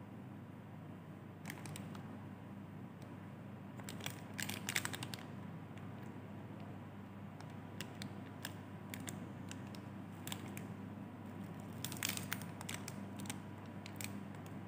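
Plastic snack wrappers crinkling as they are picked up and handled, a cupcake wrapper and then an Oreo biscuit pack, in scattered crackles with a denser burst about four seconds in and another about twelve seconds in. A low steady hum runs underneath.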